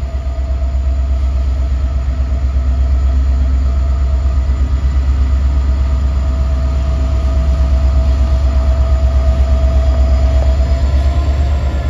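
Norfolk Southern diesel locomotive rolling slowly toward the listener at the head of a hopper train, its engine throbbing deep and steady under a constant whine, growing a little louder as it draws near.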